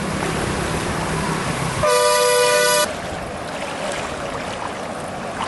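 A vehicle horn sounds one steady blast of about a second, the loudest sound here, over outdoor background noise. A low hum before it stops as the horn begins.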